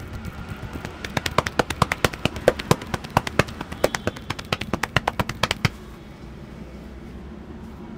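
Barber's hands slapping rhythmically on a customer's head in a head massage: a quick, even run of sharp slaps, several a second, starting about a second in and stopping near six seconds.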